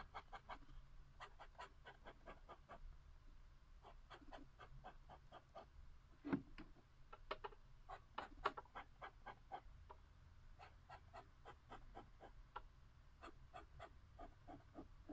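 Fountain pen nib scratching across notebook paper in quick short strokes, drawing rows of crossed lines at speed. Faint clusters of rapid scratches, with a couple of louder taps about six and eight seconds in.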